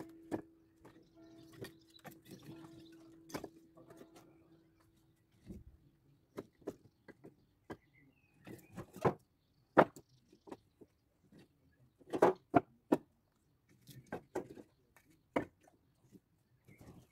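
Firewood logs knocking and clattering as they are carried and set down on a woodpile: irregular single knocks, the loudest about ten and twelve seconds in. A steady hum runs under the first four seconds.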